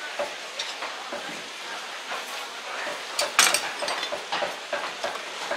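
Butcher's knife cutting and scraping along the bones of a side of pork while deboning it, giving irregular clicks and scrapes over a steady background hum. The loudest is a sharp scrape about three and a half seconds in.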